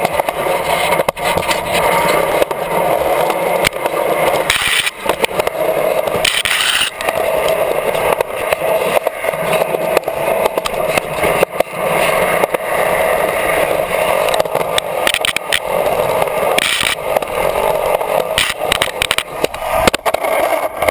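Polyurethane skateboard wheels rolling and carving over smooth concrete, heard up close from a camera mounted on the board. A continuous rumble is dotted with frequent clicks and knocks. A few short, louder rushes of hiss come through, one about five seconds in, one a couple of seconds later, and one near the end.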